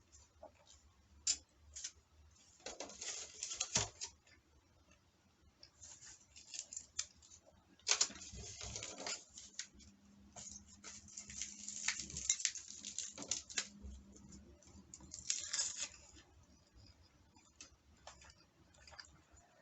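Eating sounds: utensils clicking and scraping against a dish of tuna and rice, in several short bunches with scattered single clicks between them.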